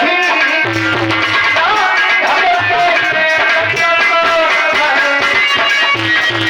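Indian folk devotional music: a steady hand-drum rhythm under a held, sliding melodic line.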